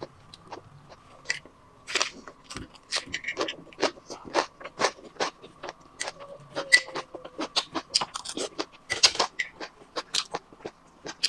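Close-up eating sounds: a person chewing a rice paper roll of beef shank, with many short, irregular smacks and clicks of the mouth, several a second. A faint steady hum lies underneath.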